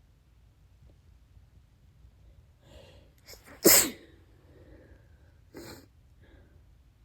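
A person's wet sneeze: a few faint breaths build up, then one loud, sudden sneeze about three and a half seconds in. A shorter, quieter burst follows about two seconds later.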